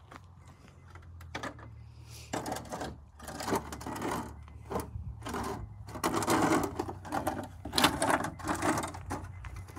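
Plastic milk crate rattling and scraping over asphalt in irregular bursts as it is shoved into place, starting about two seconds in.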